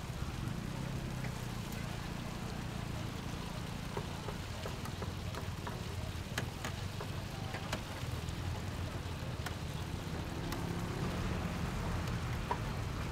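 Food stall background: a steady low hum under an even crackling hiss of dumplings pan-frying on the griddle, with scattered sharp clicks of utensils.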